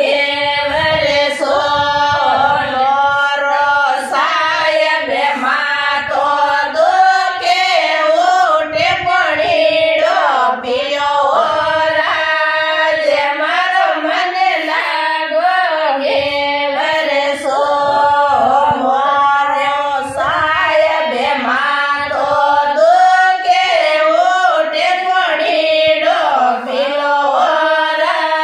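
A group of women singing a Marwari folk song together, with no instruments.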